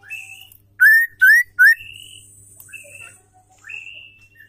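Female white-rumped shama calling with short whistled notes. About a second in come three loud rising whistles in quick succession.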